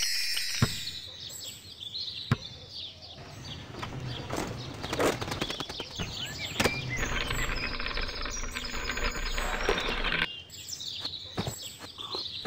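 Sound effects from an animated augmented-reality LEGO tree house: birds chirping and tweeting, with scattered clicks. A steady noise runs for about three seconds from a little before the middle.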